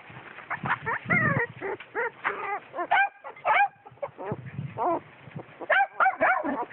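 Puppies yapping and yelping: many short, high-pitched calls that bend in pitch, coming in several quick bursts.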